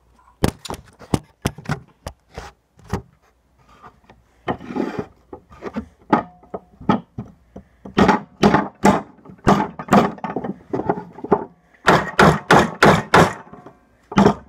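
Small hammer driving nails into a wooden board: scattered blows at first, then quick runs of about three or four strikes a second, loudest near the end.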